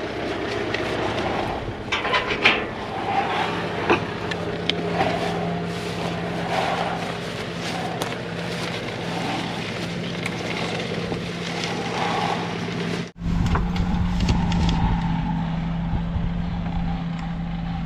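John Deere tractor engine running steadily while towing a spool of corrugated plastic drain tile, with the pipe rustling and clicking as it unrolls and drags through tall grass. About thirteen seconds in the sound cuts briefly and a heavier low rumble joins the engine.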